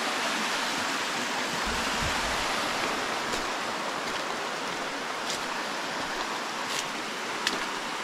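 Small waterfall cascading over rock slabs into a stream: a steady rush of water, with a few faint clicks in the second half.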